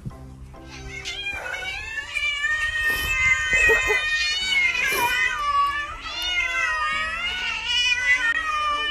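A cat yowling in long, wavering, drawn-out cries that start about a second in and go on almost without a break.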